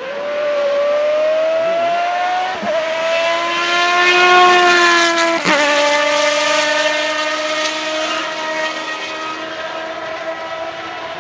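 V8 engine of a Mini Cooper S-based buggy accelerating hard. The revs climb with two quick gear changes, a small one about two and a half seconds in and a sharper one about five and a half seconds in. After that the note holds fairly steady and slowly fades.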